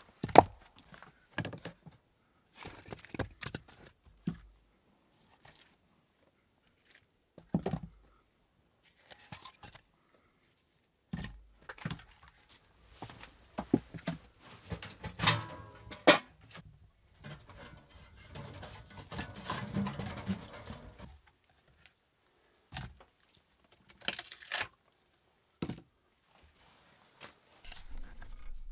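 Scattered knocks and clatters with some rustling, as of things being handled in a small enclosed room. The sounds are short and irregular, with a busier stretch of rustling and knocking in the middle and quiet gaps between.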